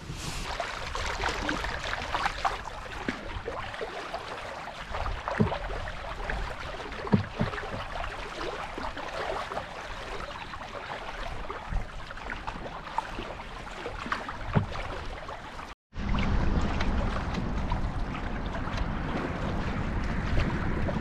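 Canoe being paddled on a river: water swishing and dripping with the paddle strokes, with scattered light knocks. About three-quarters of the way through there is an abrupt cut to a louder, steadier rushing noise, like wind or moving water on the microphone.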